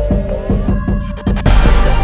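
Electronic soundtrack music with deep bass hits that drop in pitch. Midway the high end cuts out while a rising sweep builds, then a louder hit lands about one and a half seconds in.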